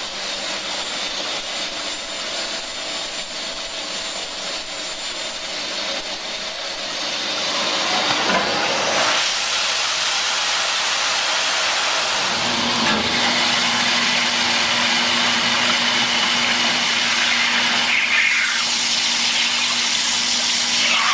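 Induction hardening of a gear: a steady hiss, then about 8 seconds in a water quench spray hits the red-hot gear and hisses louder with steam. A steady low hum joins about 12 seconds in.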